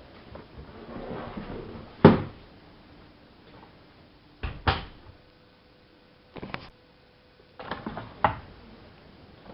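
Siemens iQ front-loading washing machine early in its wash, the drum turning with laundry dropping inside as a few dull, irregular thumps, the loudest about two seconds in.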